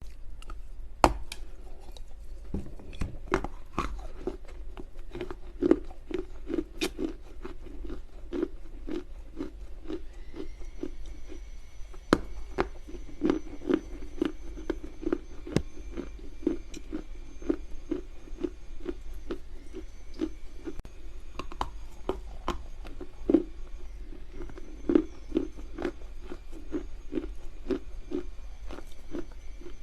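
Close-up chewing and crunching of dry loess clay in the mouth: sharp bites and cracks over a steady chewing rhythm of about two chews a second.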